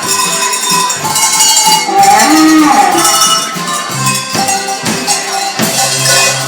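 Tuned Bavarian cowbells rung together to play a tune, many bells clanging and ringing at once.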